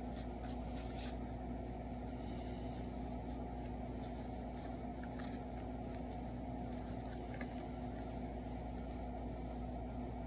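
Steady low room hum, with faint scattered ticks and soft rustles of cardboard trading cards being handled and flipped through.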